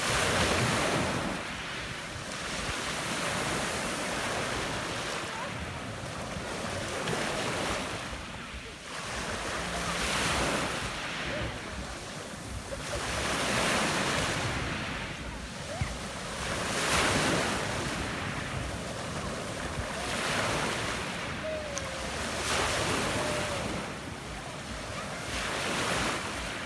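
Small Adriatic waves breaking and washing up a pebble beach, a rushing surge about every three seconds that swells and falls back.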